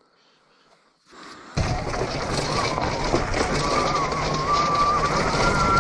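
Homemade electric dirt bike (a converted Honda CR) riding along a forest trail: a thin electric-motor whine that wavers up and down in pitch with speed, over a steady rush of wind and trail noise. Near silence at first, with the riding noise cutting in suddenly about a second and a half in.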